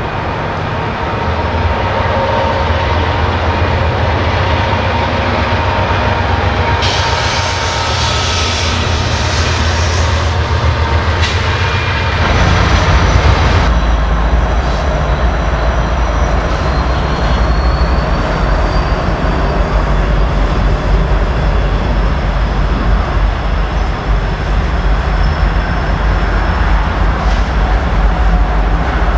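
A train rolling past with a steady low rumble of wheels and cars on the rails. A thin high wheel squeal comes in about halfway through and holds.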